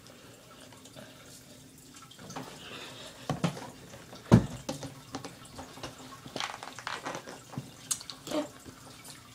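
Wet smacking and sucking mouth sounds from a lollipop being sucked close to the phone's microphone: scattered sharp clicks after a quiet start, with a single louder bump about four seconds in.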